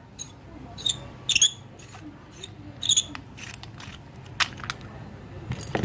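Small hard plastic and metal parts handled: about five sharp clicks and taps spread across the seconds, as a battery is fitted into a handheld fibre-optic test laser pen.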